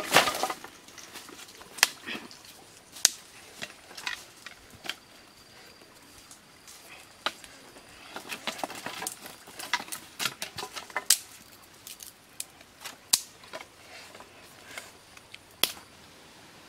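Leaves and dirt brushed aside by hand at the start, then dry sticks clicking and knocking as they are laid one at a time between stones to build a fire, with a busier run of clicks about halfway through.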